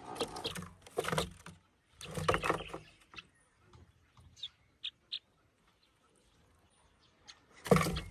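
A young house-raised sparrow giving a few short, high chirps about halfway through, after some brief rustling.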